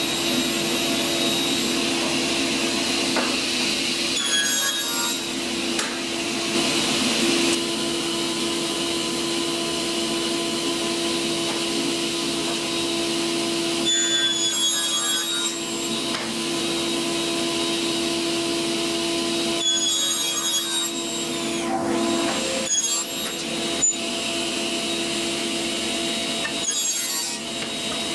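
Felder K 700 S sliding table saw running, its blade cutting wooden panels, with a steady hum and the hiss of the dust extraction under it. The cutting noise shifts briefly at a few points.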